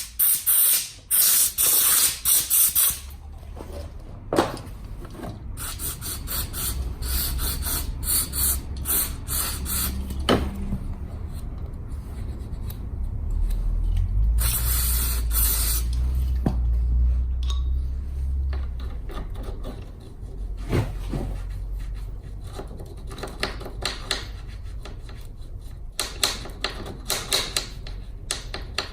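Scooter repair work: scattered short clicks, knocks and scraping, with a few hissing stretches and a low rumble underneath.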